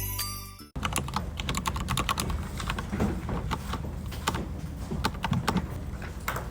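Typing on a computer keyboard: quick, irregular keystroke clicks, starting just under a second in, after a stretch of music cuts off.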